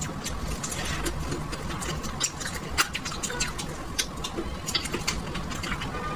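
Close-up eating sounds of braised duck neck: chewing and lip smacking as meat is pulled off the bone by mouth. They come as irregular sharp clicks, several a second.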